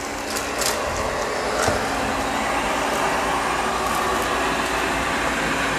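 Amarey A800 robot vacuum running steadily at maximum suction, a constant whirring hum, with a few sharp clicks in the first two seconds.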